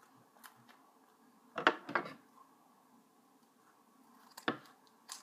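Scissors snipping through fabric and tape in a few separate sharp snips: two close together just under two seconds in, a louder one about four and a half seconds in, and a lighter one near the end.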